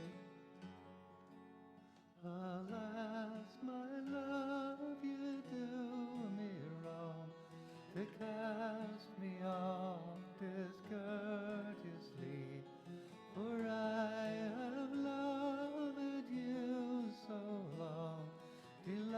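Acoustic folk song: acoustic guitar playing, joined about two seconds in by a singing voice carrying the melody.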